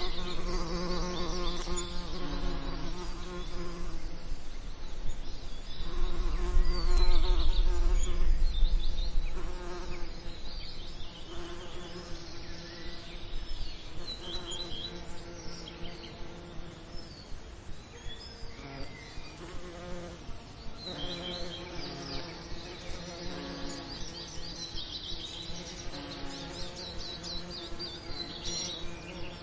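Honey bees buzzing in a steady, many-layered hum, swelling louder for a few seconds about six seconds in.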